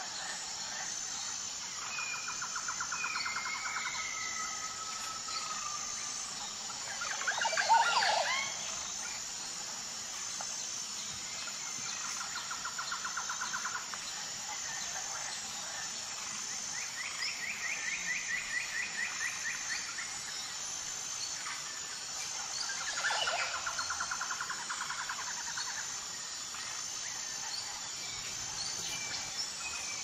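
Outdoor nature ambience: a steady high-pitched insect chirring runs underneath, while birds give repeated short trilled calls. The loudest is a sharper call about eight seconds in, with another near the end.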